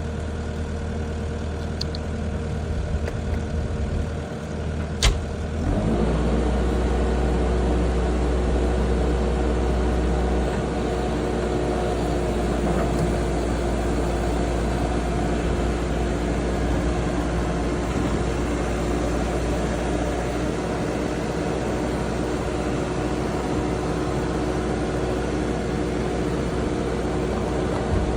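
Diesel skid steer engine running steadily. There is a sharp click about five seconds in, and then the engine note rises to a higher throttle and holds as the machine works its pallet forks.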